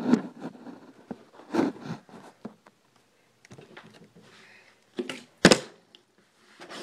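Plastic water bottle thudding onto a tabletop in failed bottle-flip attempts: several separate thuds, the sharpest and loudest about five and a half seconds in, with faint handling and shuffling between them.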